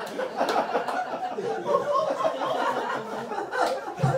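Audience of a small comedy club laughing together after a punchline.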